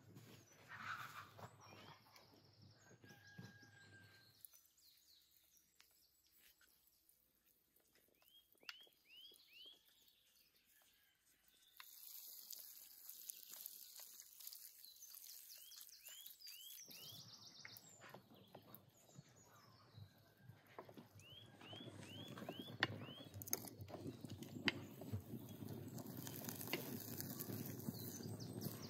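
A small bird calls several times in quick runs of four or five falling chirps. In the second half a wood fire in a metal bucket crackles with many small pops, growing louder toward the end.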